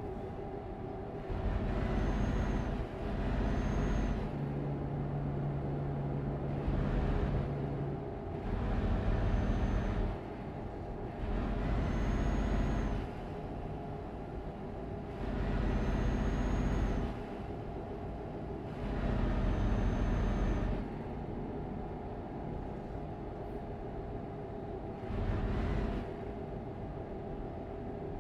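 Truck engine running with a steady drone, surging louder for a second or two about every three to four seconds, with a hiss and a faint high whine on each surge.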